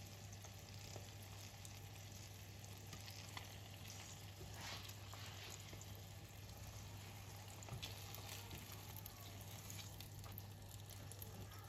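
Salmon fillets sizzling faintly in oil in a frying pan, with a few soft clicks and scrapes as metal tongs turn the pieces over, all over a steady low hum.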